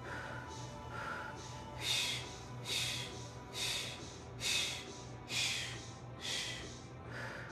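A person breathing out hard through the mouth, short hissing exhalations about once a second in rhythm with each ab pull-in rep, with a few quieter breaths in between. Faint background music underneath.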